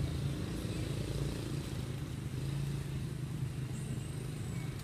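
Low, steady drone of an engine running, with no change in pitch or level.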